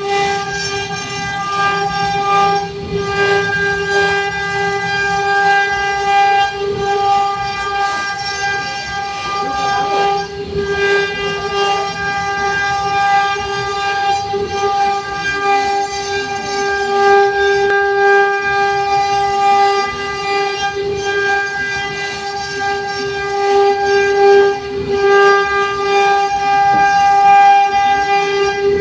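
CNC router spindle whining at a steady high pitch as it carves a wooden door panel, with a rough cutting noise underneath and the upper part of the whine fading in and out as the cut changes.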